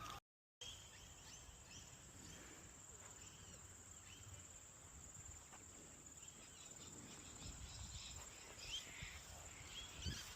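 Faint outdoor ambience: a steady, high-pitched insect drone with scattered small bird chirps. The sound cuts out completely for a moment just after the start.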